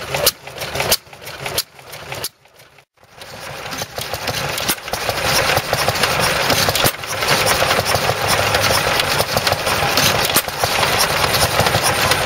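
A vintage stationary engine knocking regularly about twice a second. After a brief cut, an Amanco Hired Man hit-and-miss stationary engine runs steadily with a fast, dense mechanical clatter.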